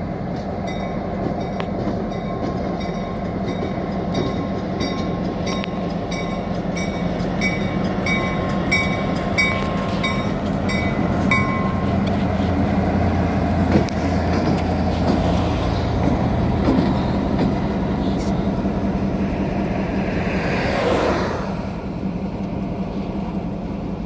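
Norfolk Southern four-axle diesel locomotive running light past, its engine drone growing louder as it comes by and easing off as it moves away. A bell dings steadily, about once every half second, until about halfway, and a rushing pass-by sweeps through near the end.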